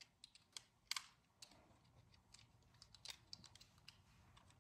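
Faint, scattered clicks of small plastic Beyblade parts being handled and fitted together by hand, the loudest about a second in.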